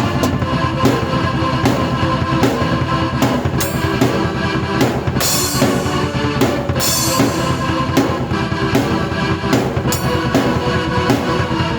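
Rock music played on a drum kit and keyboard together, with a steady kick-and-snare beat and cymbal crashes about five and seven seconds in.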